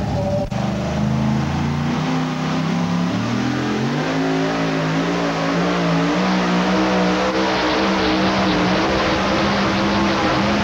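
Supercharged engine of a pro-mod two-wheel-drive pulling truck revving up, its pitch climbing for about three seconds and then held high and steady while it pulls the sled.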